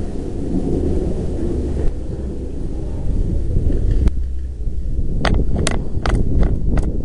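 Wind and handling rumble on a moving camera's microphone; from about five seconds in, a quick run of about seven sharp pops, three or four a second.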